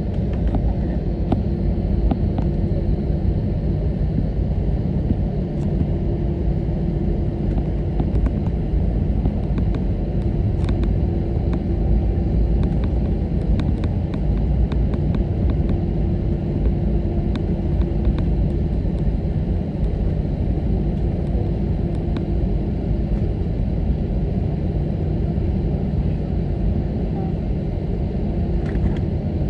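Steady low rumble inside an Airbus A321neo cabin after landing, with a steady hum over it and faint scattered clicks and rattles.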